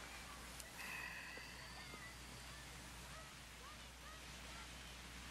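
Faint outdoor ambience with small birds chirping in short rising notes, and one brief, louder pitched call about a second in.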